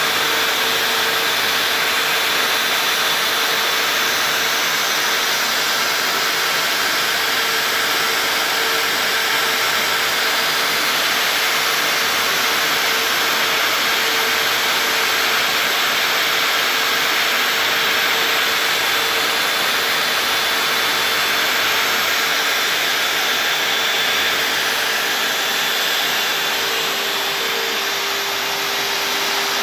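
Homemade CNC router's spindle running steadily as its bit engraves lettering into a white-faced board: a continuous high whine and hiss. Its low hum drops slightly in pitch near the end.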